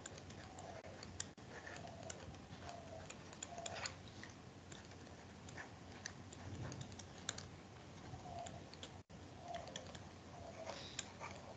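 Faint, irregular clicks and taps of a pen stylus on a drawing tablet during handwriting.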